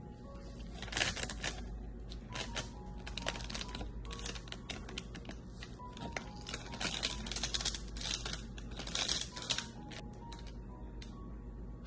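Kitchen utensils working food: clusters of quick clicks and short scrapes, heaviest about a second in and again around seven and nine seconds in.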